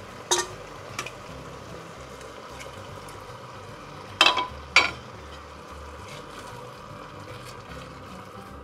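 Risotto simmering and sizzling steadily in a heavy enamelled pot just after hot broth has been ladled onto the rice. A few sharp knocks of the ladle and spatula against the pot come in, one near the start and two close together about four seconds in, the loudest.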